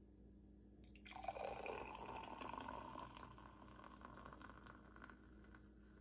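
A faint liquid dripping sound. It starts suddenly about a second in and slowly fades.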